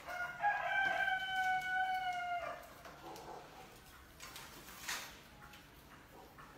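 A rooster crowing once, a single long, steady call of about two seconds near the start. Afterwards come light scratches and clicks from rats clambering on a wire-mesh cage, one sharper click a little before five seconds in.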